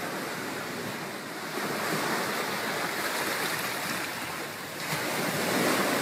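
Waves washing onto a rocky beach: a steady rushing noise that swells about a second and a half in and again near the end.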